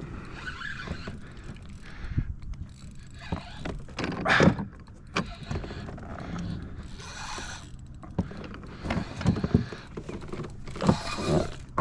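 Fishing reel being cranked while a fish pulls on a bent rod, with irregular knocks and scrapes of handling; the loudest rush comes about four seconds in.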